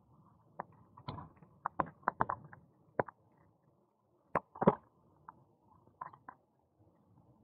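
Irregular clicks and knocks from a bicycle rattling as it rides along a tarmac path, over a faint low rumble. The loudest is a sharp double knock about two-thirds of the way through.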